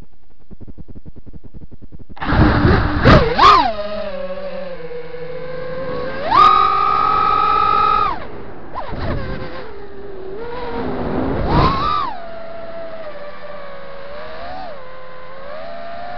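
FPV quadcopter's brushless motors and propellers heard through its onboard camera microphone: a low, even buzz, then about two seconds in the motors spool up into a loud whine. The pitch rises and falls with the throttle, with hard punches near the start, around the middle, and again about twelve seconds in, before settling to a lower, wavering cruise.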